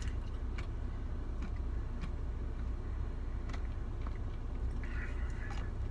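Steady low background rumble with a few faint, short clicks scattered through it.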